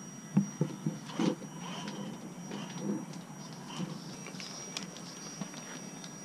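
Gmade GOM RC rock crawler driving over gravel and rocks, its tyres crunching and the chassis knocking on stones, with several sharp knocks in the first second and a half and scattered ones after.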